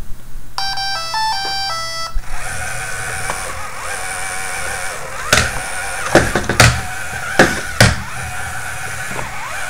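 Parallax Scribbler 2 robot's speaker playing a quick tune of stepped electronic beeps, then its drive motors whining steadily as it runs its preloaded program, with several sharp knocks in the second half.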